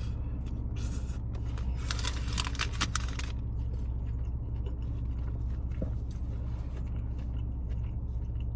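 Steady low hum of a car sitting with its engine running, heard inside the cabin, under quiet eating sounds, with a burst of crackling from about two seconds in that lasts a second and a half.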